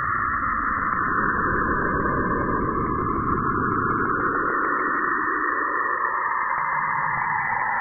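NASA sonification of Saturn's radio emissions, spacecraft radio data shifted into the audible range. A steady band of hiss, with a lower rushing layer under it that drops away about halfway through.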